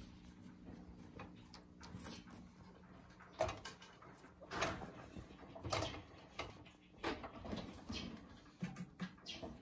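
Feather wand toy rustling and knocking against a wire pet cage as kittens bat at it with their paws: a run of irregular rustles and light rattles, starting about three seconds in, over a faint steady low hum.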